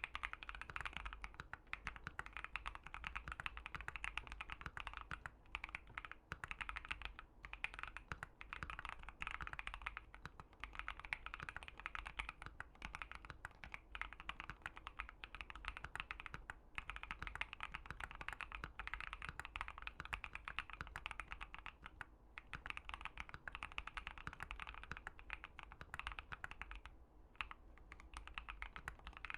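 Typing on a Keychron Q1 mechanical keyboard fitted with an FR4 plate and Gazzew Boba U4T tactile switches: a steady stream of keystrokes with a few brief pauses.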